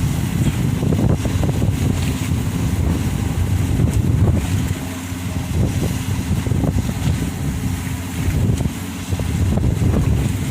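Strong wind buffeting the microphone in an unsteady low rumble, over a faint steady drone from the ferry's engines.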